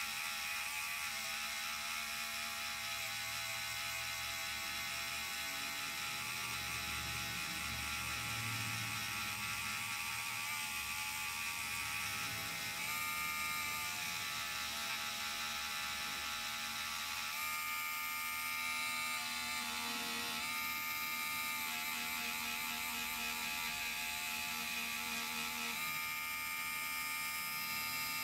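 Small handheld rotary tool's electric motor whirring steadily as its felt polishing wheel buffs scratches out of a gold grill. Its pitch shifts now and then as the wheel is pressed on and eased off.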